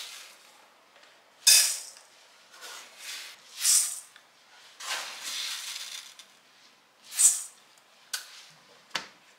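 Uncooked rice grains poured from a plastic bag into a stainless steel bowl, in a series of short rattling, hissing pours, with a sharp click near the end.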